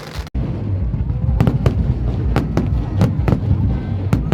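Fireworks display: aerial shells bursting in quick succession, many sharp bangs a second over a continuous low rumble.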